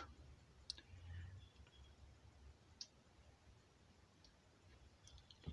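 Near silence, broken by a few faint, separate clicks, the last one near the end a little louder.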